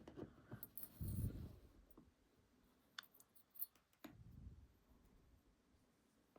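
Faint clicks and soft low bumps from small metal lock parts being handled and set down.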